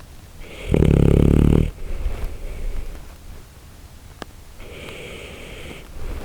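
Shiba Inu snoring in her sleep: one loud snore about a second in, then a softer, breathy snore near the end.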